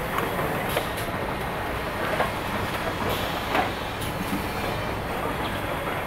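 Automated stator bolt assembly machine running through its cycle: a steady mechanical hum with a few sharp, irregular clacks.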